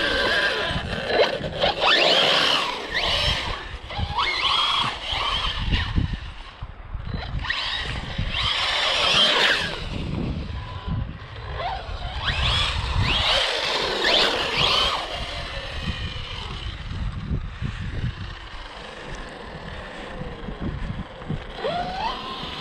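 RC car's electric motor whining in repeated bursts, its pitch sliding up and down as it speeds up and slows, with tyres scrubbing on wet concrete.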